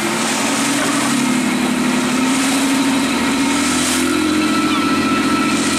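Lobster boat's engine running steadily, its pitch rising a little between about one and two and a half seconds in, then holding.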